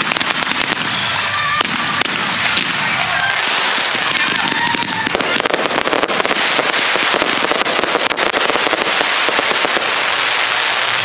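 Fireworks going off in a dense run of rapid pops and crackles, growing into a thick continuous crackle about five seconds in.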